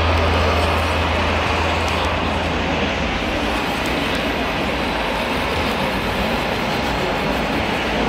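Steady background din of a crowded indoor RC model show, with a low engine-like drone that fades out about three seconds in.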